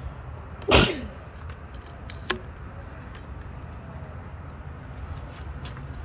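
Steel seal picks working at the seal inside a Bobcat E32i track tensioner cylinder: one loud, sharp scrape-and-snap about a second in, then a short metallic click, over a steady low rumble.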